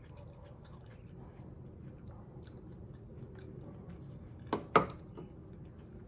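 Quiet chewing of food with small mouth clicks, then two sharp knocks of dishware about four and a half seconds in, as a ceramic bowl is set on the table.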